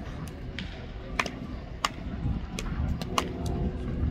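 Baseballs smacking sharply during infield drill work: several crisp cracks at irregular spacing, three of them louder than the rest, over a steady low outdoor rumble.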